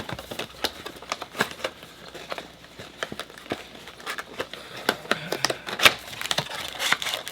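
Trading card packs and a cardboard box being handled: crinkling of plastic wrapping and packaging with many small irregular clicks and crackles.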